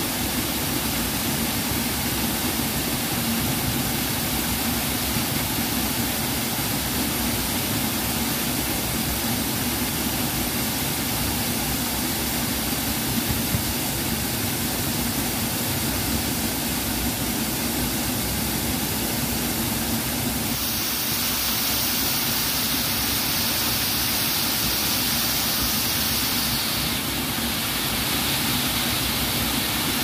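Waterfall pouring into a pool: a steady rush of falling water, its hiss turning brighter for several seconds past the middle.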